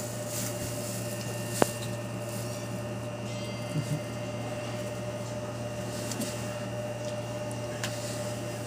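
Steady machine hum with a constant low drone and a thin steady tone above it, broken by one sharp click about a second and a half in and two soft little sounds near four seconds.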